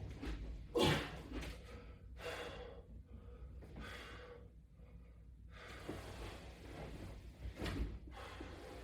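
A man breathing hard from exertion: a series of forceful breaths every second or two, the loudest about a second in.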